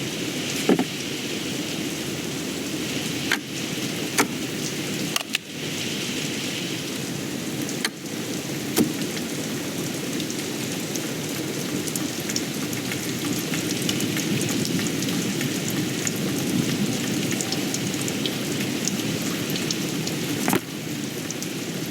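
Steady rain falling, with a few short sharp clicks and knocks over it, several in the first half and one more near the end.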